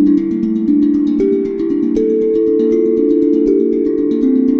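Live-looped music on a steel tongue drum: hand-struck notes ring and overlap in a low register, with a new note coming in every second or so, over a fast, steady ticking pulse.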